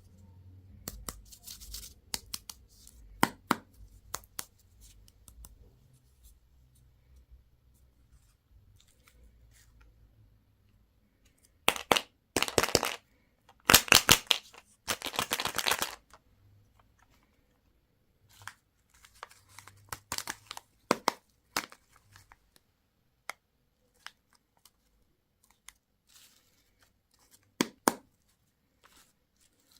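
Candy and toy packaging being torn open and crinkled: scattered small clicks and crackles, with two louder spells of tearing about twelve seconds in and again from about fourteen to sixteen seconds.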